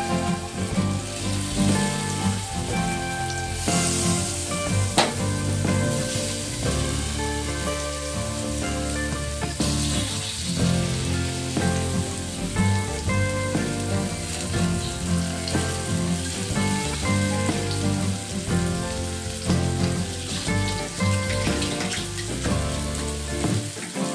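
Hot oil sizzling steadily as masala-coated elephant foot yam slices shallow-fry in a nonstick frying pan, with background music underneath.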